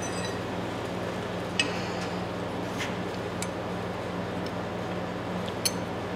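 A handful of light metallic clicks and clinks as the steel parts of old Eagle Claw pliers are handled, two of them with a short ring. A steady low hum runs underneath.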